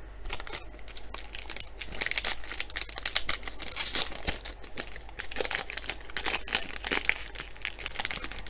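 Foil wrapper of a trading-card pack crinkling and tearing as it is opened by hand, in a dense run of small crackles.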